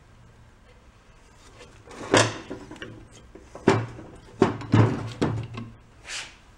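Metal engine parts knocking and clunking against one another and the workbench, about five sharp knocks in the second half, as a small engine's block and its stuck mounting plate are worked and shifted. A short hiss comes near the end.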